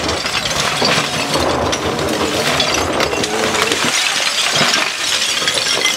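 MultiOne mini loader's bucket shoving into a pile of broken terracotta roof tiles, the fragments clattering, clinking and scraping against each other and the steel bucket without a break, with the loader's engine running underneath.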